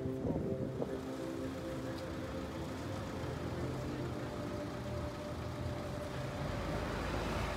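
An engine running with a steady, even hum, the noise around it swelling near the end.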